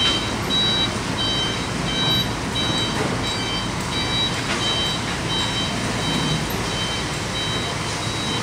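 Vehicle reversing alarm beeping steadily, about two beeps a second, over a diesel engine running, as a heavy vehicle is manoeuvred out of mud.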